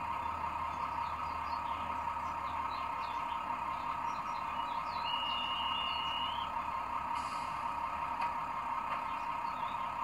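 Sound decoder of a Roco H0 VT 798 railbus model, playing a diesel engine idling through the model's small speaker as a steady drone. A short, high, held tone comes in about five seconds in, and a brief hiss about two seconds later.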